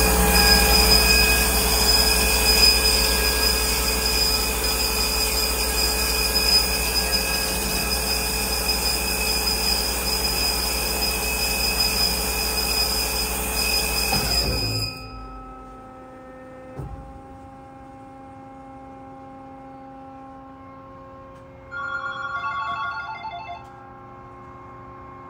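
Amada CTB400 vertical bandsaw running steadily, then shutting off about fifteen seconds in and winding down to a low hum. A few seconds later, a rapid electronic beeping sounds for about two seconds.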